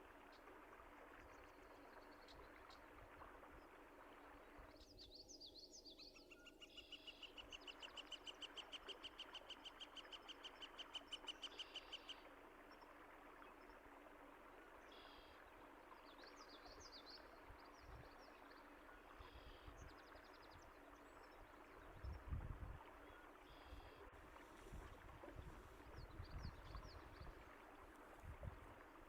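Faint, steady rush of flowing water with birds chirping now and then. About five seconds in, one bird gives a long fast trill of evenly repeated notes lasting about seven seconds; low rumbles come in near the end.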